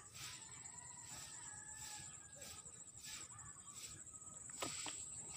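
Insects trilling steadily in the riverside grass: a high, pulsing, continuous trill with a shorter chirp repeating about twice a second. A faint, drawn-out distant animal call sounds in the middle, and a few light clicks come near the end.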